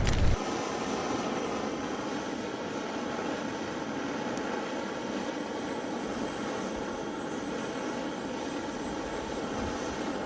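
Gas torch flame blowing steadily on firewood, a constant rushing hiss, after a low rumble that stops in the first moment. The wood only smokes and does not catch.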